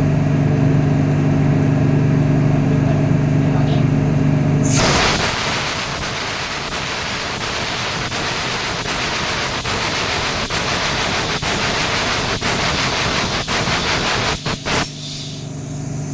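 A steady low engine-room machinery hum, then about five seconds in a sudden rush of hissing high-pressure starting air with faint regular pulses, typical of a large marine diesel being turned over on compressed air. The hiss lasts about ten seconds and cuts off abruptly, and the hum returns.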